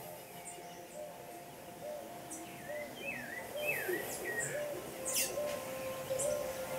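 Wild birds chirping: short high tweets scattered throughout, with a quick run of swooping chirps about three to four seconds in.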